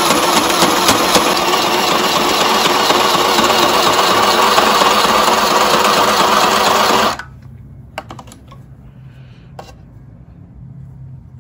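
Small portable electric sewing machine running steadily as it stitches a cotton mask, stopping abruptly about two-thirds of the way through. A couple of light clicks follow in the quiet after it stops.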